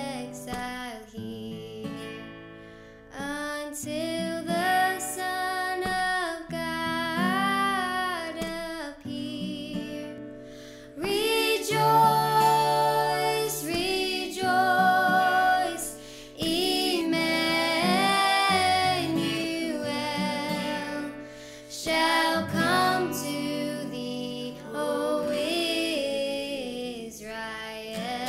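A worship song: a woman singing a slow melody, with acoustic guitar accompaniment.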